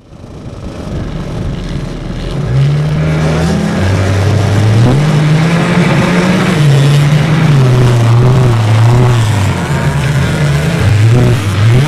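A pack of racing quad bikes' engines revving and accelerating hard, several engine notes rising and falling over one another. The sound fades in over the first couple of seconds.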